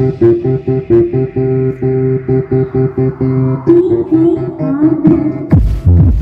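Music: a plucked, guitar-led riff with a steady pulse and some sliding notes. Near the end it gives way to a heavy, deep bass beat.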